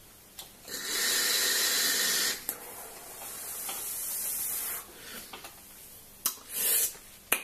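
A loud airy hiss of about a second and a half, then a softer breathy hiss of about two seconds: a long direct-lung draw through a Wismec Reux rebuildable tank atomizer with its airflow wide open, then the exhale of a big cloud of vapour. A few short puffs follow near the end.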